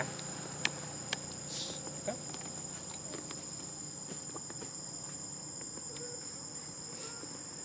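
Steady high-pitched drone of insects, with a few faint clicks.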